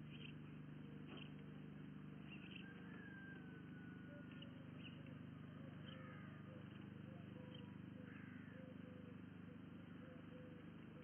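Faint outdoor webcam-microphone background: a steady low hum, with a few short bird chirps and whistles. From about four seconds in, a soft note repeats roughly twice a second.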